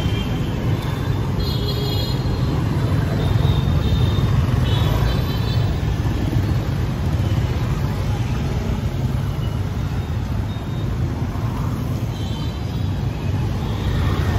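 Steady city street traffic noise with a low rumble throughout, and brief snatches of voices here and there.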